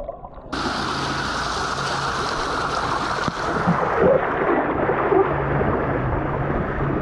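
Water rushing down a water slide close to the microphone: a steady hiss of flowing water. It starts suddenly about half a second in, after a brief muffled lull, and turns duller about four seconds in.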